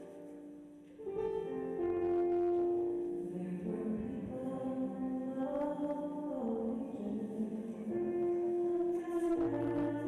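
Slow church hymn: a singing voice with sustained instrumental accompaniment, which gets louder about a second in.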